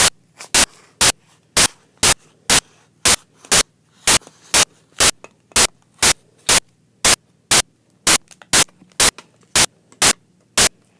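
Loud, evenly spaced static clicks, about two a second, over faint background noise. Their machine-like regularity, running on unchanged through the surrounding speech, marks them as a recording glitch rather than anything being handled.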